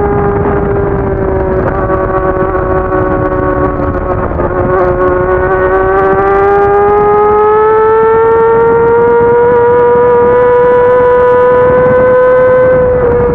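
Racing sportbike engine running hard in fourth gear with wind rush. Its pitch sags a little in the first seconds, climbs steadily as the bike accelerates, then drops near the end as the throttle eases.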